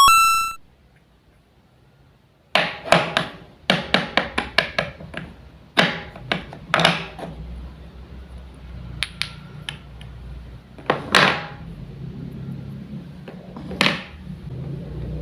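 Wooden toy fruits and vegetables being handled and cut apart: a quick run of sharp wooden clacks and knocks from about two and a half seconds in, then single knocks every second or two. A short chime sounds right at the start.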